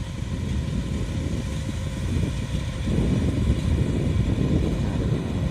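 Kubota DC-105X combine harvester running, its diesel engine and threshing machinery giving a steady low rumble that grows louder about halfway through.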